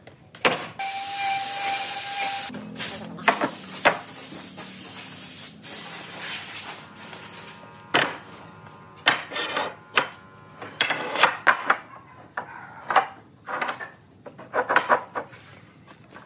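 A steady hiss for about seven seconds that cuts off suddenly, then planed wooden boards set down and shifted on a wooden tabletop: a run of sharp wooden knocks and clatters.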